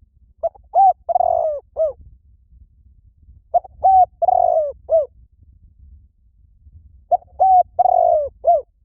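Spotted dove cooing: three phrases about three seconds apart, each of two short coos, a longer coo and a short final coo.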